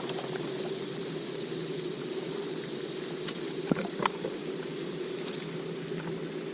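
A steady motor hum with a hiss over it, broken by two sharp clicks a little past halfway.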